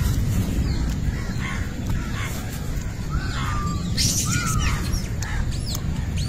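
Crows cawing and other birds calling, a run of short calls that is busiest a few seconds in, over a steady low rumble.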